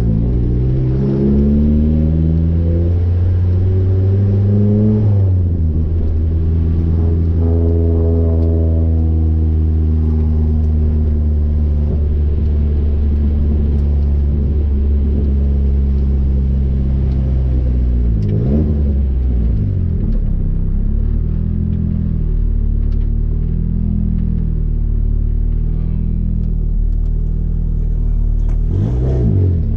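Turbocharged car engine through a straight-through blast-pipe exhaust with no muffler, heard from inside the cabin while driving. The revs climb for the first five seconds, drop at a shift, hold steady for a long stretch, then rise and fall several times in the last third before climbing again at the end.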